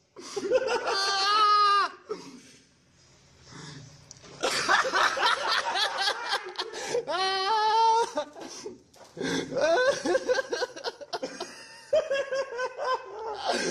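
Men laughing hard in several bouts, with short quieter breaks between them.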